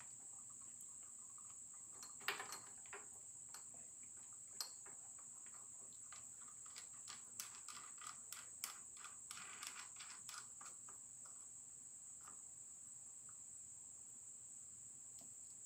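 Faint scattered metallic clicks and taps of hand tools on a milling machine as the clamp and setup are snugged down, busiest in the middle, over a steady faint high-pitched whine.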